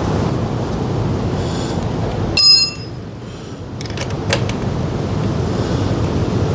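A metal tool or part clinks once with a short, bright metallic ring about two and a half seconds in, while the motorcycle's lower fairing bolts are being undone by hand. A few faint sharp clicks of the tool follow, over a steady background hiss.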